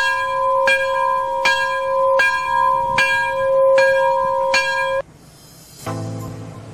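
A bell struck seven times, about three-quarters of a second apart, each stroke ringing on into the next. It cuts off abruptly about five seconds in, and music begins near the end.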